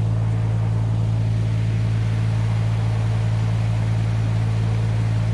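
Mini excavator's diesel engine running at a steady speed, a constant low drone with no change in pitch.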